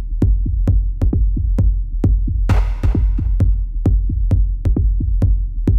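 Background electronic music with a steady drum-machine beat, about four beats a second, over a deep bass, with a hissy swell about halfway through.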